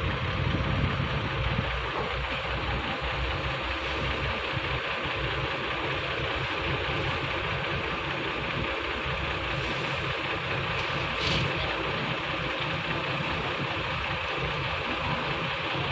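Heavy dump truck's diesel engine running steadily at low speed as the truck creeps into a ferry's vehicle deck. A short hiss comes about two-thirds of the way through.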